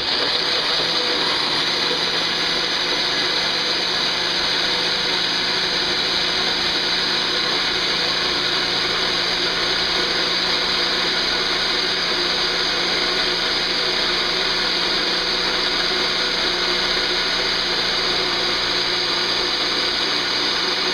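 A 600-watt Nutribullet blender running steadily, its cup pressed down onto the motor base, blending banana, yogurt, orange juice and frozen strawberries into a smoothie.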